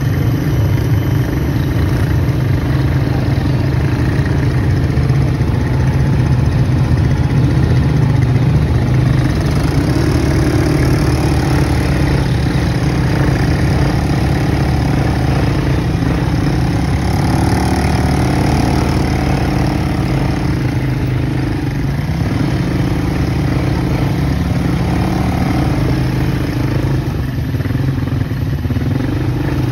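ATV (quad bike) engines running steadily at low trail speed, a continuous engine drone with small rises and dips in pitch.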